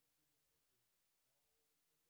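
Near silence: the audio is all but muted.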